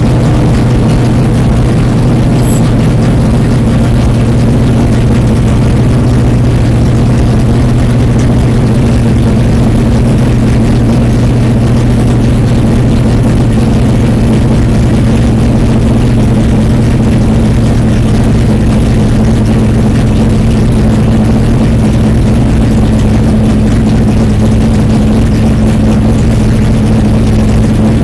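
Stock car V8 engine idling steadily, heard from inside the cockpit of the stationary car.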